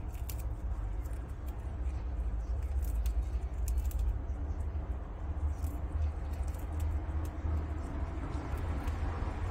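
Prairie dogs biting and chewing fresh grass blades, heard as irregular crisp crunches and clicks. A steady low rumble runs underneath.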